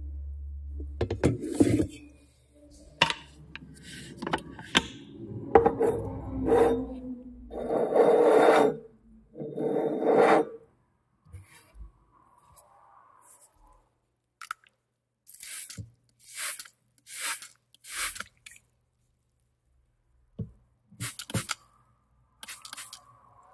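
Kitchen utensils handled for foley: a string of knocks and clicks, then two longer scraping rubs in the middle, followed by four short hissing sweeps about a second apart and a few sharp clicks near the end. A low hum fades out in the first few seconds.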